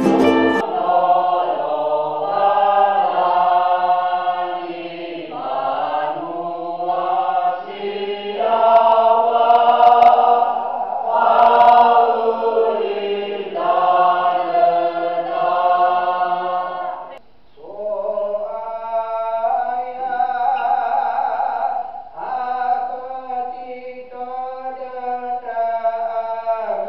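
A group of voices singing a church hymn together in long held notes. There is a brief break about two-thirds of the way through, then the singing resumes.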